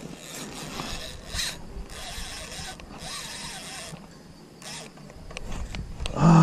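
Fishing reel working in several short bursts of ratcheting and whirring as a hooked tarpon pulls line off against the drag. Right at the end a much louder held, pitched call starts.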